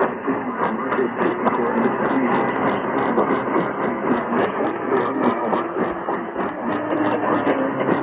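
Distant radio reception: dense static and noise with faint garbled tones underneath, cut off above about 3 kHz, with regular crackles a few times a second.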